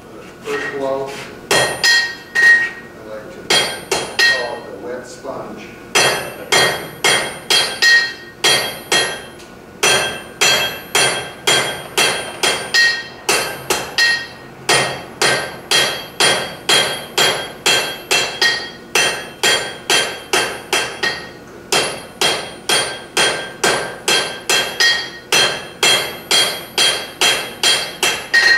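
Blacksmith's hand hammer striking a red-hot wrought iron bar on an anvil in runs of about two blows a second, with short pauses between runs. Each blow rings.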